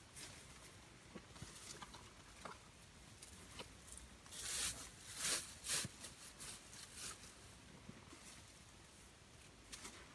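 Spruce boughs rustling and brushing against each other as they are laid and pressed onto a bough bed, in soft scattered rustles, louder for a couple of seconds near the middle.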